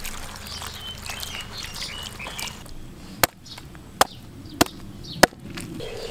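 Four sharp chops of a large knife cutting through a lizard carcass onto a wooden board, starting about three seconds in and spaced under a second apart. Before them, birds chirp over splashing water.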